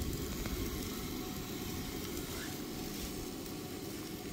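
Sausage links sizzling in a skillet on a gas camp stove, a steady hiss over a low even rush.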